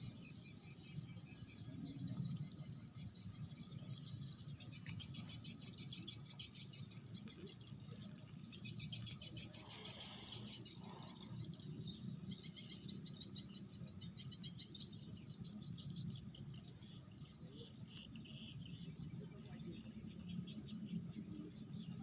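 Insects chirping in rapid pulsing trains, a steady high chorus, with a brief rustle about ten seconds in.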